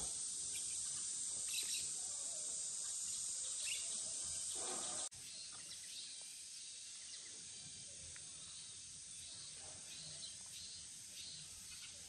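Outdoor background ambience: a steady high hiss with a few faint bird chirps. About five seconds in it cuts suddenly to a quieter, similar background.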